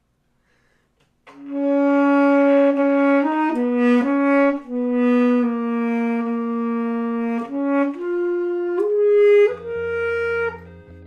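Solo saxophone played into a USB microphone: a slow melody of long held notes that begins about a second in. Near the end a low, steady background chord comes in under the last note.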